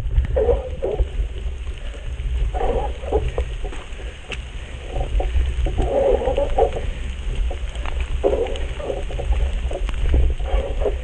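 Heavy, strained breathing: a laboured breath about every two to two and a half seconds, over a steady low rumble of wind on the microphone.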